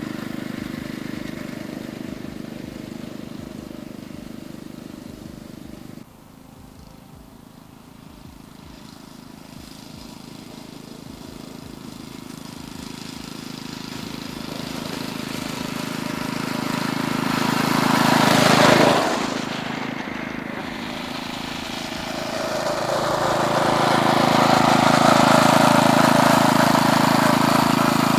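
A small engine-driven miniature railway train running. It grows louder as it comes closer, passes close by about 19 seconds in, and then another run builds up near the end. The sound changes abruptly at about 6 seconds.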